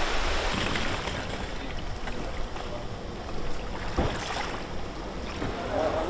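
Storm wind and rain making a steady noisy rush, with wind buffeting the microphone, and one brief knock about four seconds in.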